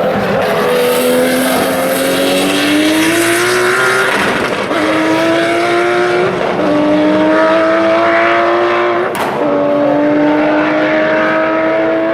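Historic racing car accelerating hard, its engine note climbing and then dropping at each of several upshifts. There is a sharp crack at one shift about nine seconds in.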